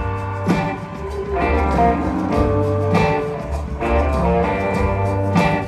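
Live blues-rock band playing an instrumental passage between verses: guitar over a heavy bass line and drums, with no singing.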